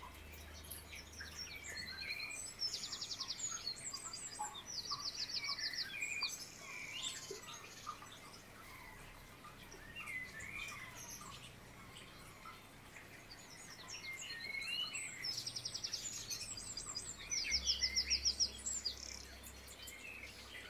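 Songbirds chirping and calling, with runs of fast rattling trills a few seconds in and again near the end.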